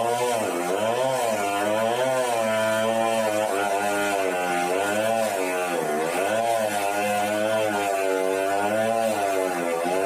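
An engine running without a break, its pitch rising and falling about once a second.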